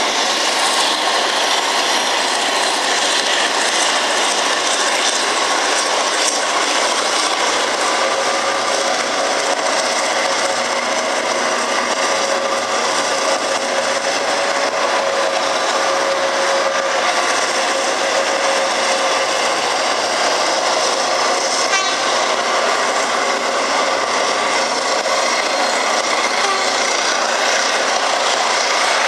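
V/Line N-class diesel-electric locomotive and passenger carriages moving slowly through the station yard: steady train running noise of engine and wheels on rail, with a faint steady whine for several seconds midway.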